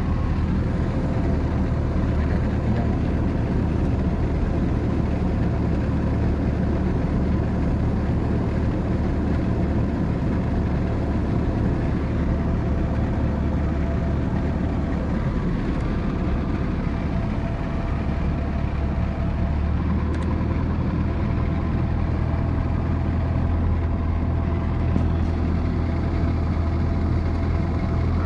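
Engine and propeller of a single-engine light plane running steadily, heard from inside the cockpit: a constant low hum with steady higher tones over it.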